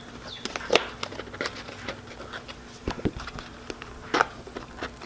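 Irregular clicks and taps of hard plastic parts being handled: the prongs on a face-shield strap being pushed into the holes of the acrylic shield. The sharpest clicks come about a second in and again near the end, over a faint steady hum.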